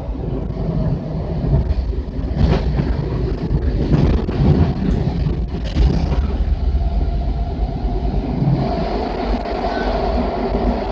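Interior of a Washington Metro 7000-series railcar running at speed: a steady rumble of wheels on rail and traction noise, with a few louder clatters a couple of seconds apart. About three-quarters of the way through, the noise evens out into a steadier hum as the train runs into a tunnel.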